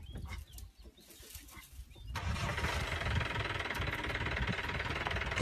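A vehicle engine starts up about two seconds in and then runs steadily at idle with a pulsing low rumble, close by.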